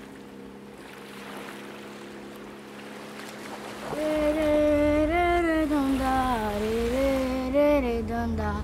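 Faint wash of sea water over rocks, then about four seconds in a woman's voice begins singing slow, long notes that glide up and down over a low rumble.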